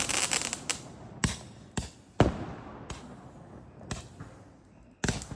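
Fireworks going off: a string of sharp bangs about every half second to a second, the loudest a little past two seconds in, each trailing off into a fading rumble and crackle, with a quick run of several bangs at the very end.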